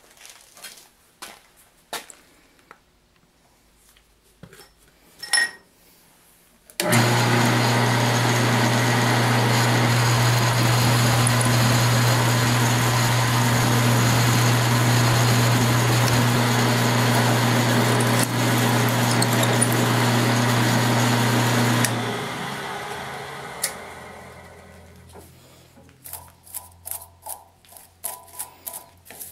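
Drill press motor running steadily with a low hum while a twist drill bores holes in a 6061 aluminum plate. It starts abruptly about a quarter of the way in, is switched off about two-thirds of the way through and winds down over a few seconds.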